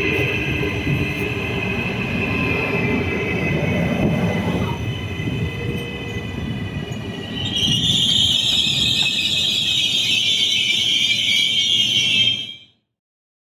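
Train rolling through the station with rumble and high steady tones, then a loud high-pitched screech of the wheels beginning a little past halfway; the sound cuts off suddenly near the end.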